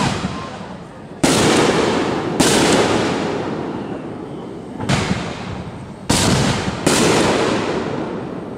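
Fireworks going off: five sharp bangs in about six seconds, each trailing off in a long rolling echo.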